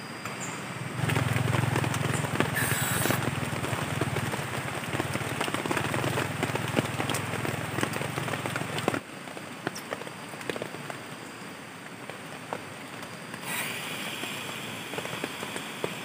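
Dense crackling and ticking over a low hum that stops abruptly about nine seconds in. Near the end a steady hiss starts as the valve of a portable butane stove is opened.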